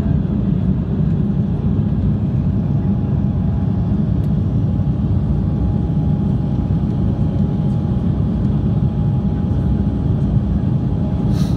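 Steady roar of a jet airliner's engines and airflow, heard inside the cabin during the climb after takeoff. A faint steady whine comes in a few seconds in and fades near the end.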